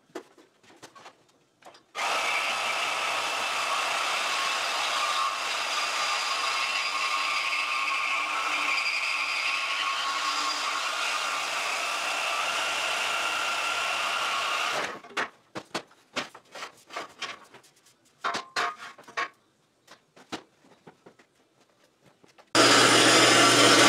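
A corded handheld power tool runs steadily on the steel tubing for about thirteen seconds, then stops, followed by scattered knocks and clatter. Near the end a louder steady sound with a low hum cuts in.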